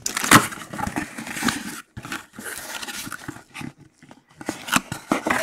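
Cardboard box and packing being opened and handled, with irregular scraping and rustling as a mini helmet in its plastic case is pulled out.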